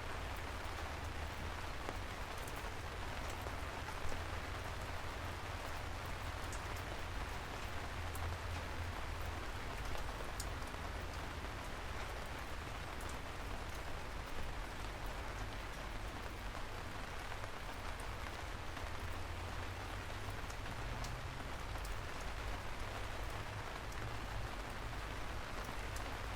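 Steady rain falling, with scattered sharp drop ticks and a low rumble underneath.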